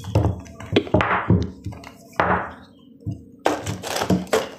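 Rubber-insulated welding cable with its electrode holder and connector being handled: a run of dull thunks and knocks as the cable and its fittings bump the table, with a couple of brushing, rustling sweeps as the cable is pulled and coiled.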